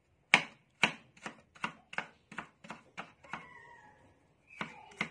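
Cleaver chopping ginger on a cutting board: a quick run of about nine strokes, roughly three a second, a short pause, then a few more strokes near the end.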